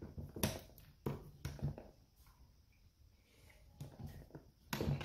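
Light clicks and handling noise of an antenna's right-angle BNC connector being fitted onto the connector on a plastic ammo can: a few short clicks in the first two seconds, a pause, then more clicks near the end.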